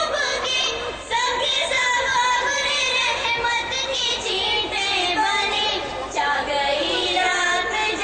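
A song playing: music with a singing voice carrying a wavering melody.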